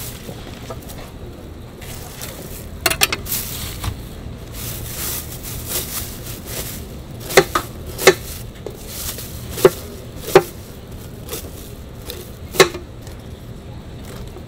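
Sharp knocks and taps of a peeled pineapple and utensils being handled on a plastic tray. A cluster of quick clicks comes about three seconds in, then five single sharp knocks over the following ten seconds.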